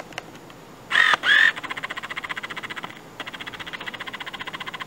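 Autofocus motor of a Yongnuo 35mm f/2 lens on a Canon DSLR, heard as a rapid rattling buzz while the lens drives focus. It stops briefly around three seconds in, then starts again. Two short, loud beeps come about a second in, just before the buzzing starts.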